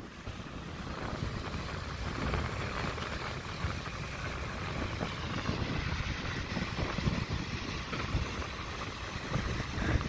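Wind buffeting the microphone over the steady wash of surf breaking on a sandy shore.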